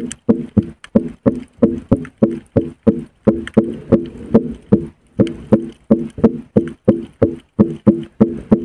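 Longhorn cowfish held in the hand underwater, giving a steady train of short low buzzing grunts, about three a second.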